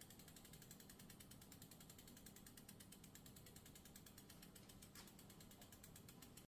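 Bicycle rear freewheel ticking: rapid, even, faint clicks of the hub pawls as the rear wheel spins freely, with a low hum underneath.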